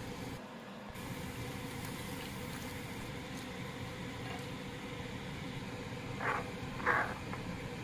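Liquid bubbling and sizzling in a frying pan on a stove: a steady hiss. Near the end come two short scrapes, about half a second apart, as a spoon stirs the pan.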